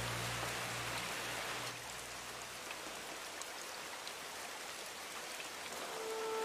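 Steady rain falling, a continuous hiss of heavy rain on the ground. A low hum under it fades out about three seconds in, and a few sustained music notes come in near the end.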